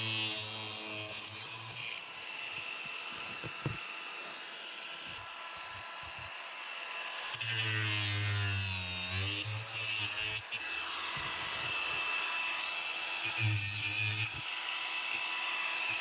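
Cordless angle grinder running against cured fiberglass, cutting away excess cloth and resin from the edge of a shell. Its motor pitch sags and recovers as the disc bites, most clearly about halfway through.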